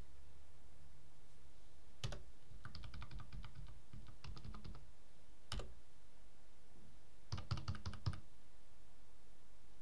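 Computer keyboard typing: a couple of single sharp key clicks and three quick runs of keystrokes separated by pauses, the last run near the end the loudest, over a steady low hum.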